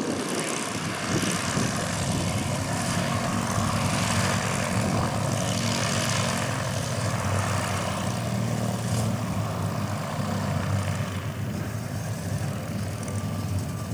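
Fairchild PT-19A trainer's Ranger L-440 inverted inline six-cylinder engine running steadily at low power with the propeller turning, as the plane taxis on the ground.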